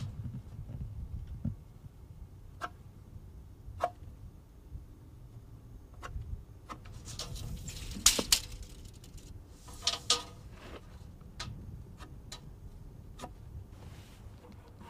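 Steel tape measure being handled along a wooden rafter: scattered light clicks and taps, with two short scraping sounds about eight and ten seconds in.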